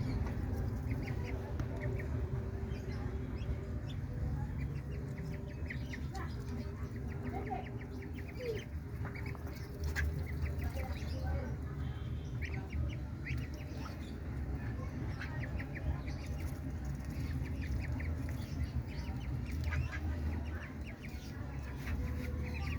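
Ducklings feeding, their bills making many short clicks and taps as they peck and dabble at their food, over a low steady rumble.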